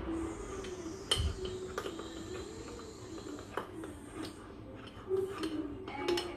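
A utensil clinking against a ceramic mug as mug-cake batter is stirred: scattered light clicks, about one or two a second.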